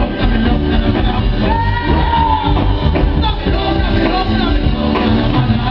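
Live band music played loud through a PA system, with a heavy bass line under a male singer's voice.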